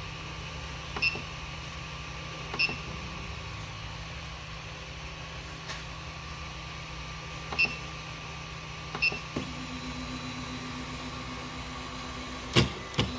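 Desktop 3D printer running with its fans humming steadily, and several short high beeps spaced a second or more apart as its control is worked to resume the print. About nine seconds in a stepper motor starts a steady low whine as the print head moves, and two sharp clicks come near the end.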